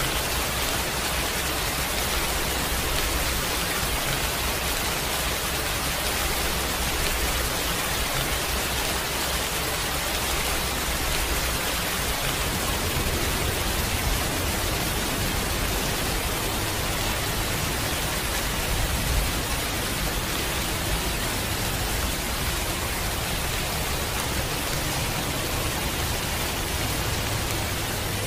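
Heavy rain falling steadily: a constant, even hiss with no breaks or single drops standing out.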